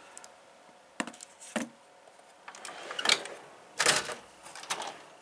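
Scattered clicks and clattering knocks of tools and a toolbox drawer being handled, with the loudest knock a little under four seconds in.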